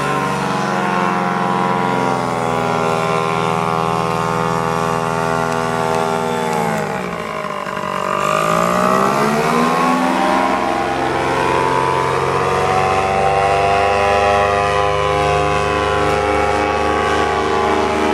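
Paramotor engine and propeller running steadily in flight. About seven seconds in, the pitch glides down and the sound dips a little, then the pitch climbs back and holds steady.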